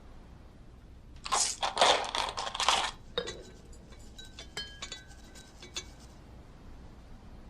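A burst of clattering for about two seconds, then a run of scattered light clicks and short ringing clinks of small hard objects, like dishes or cutlery being handled.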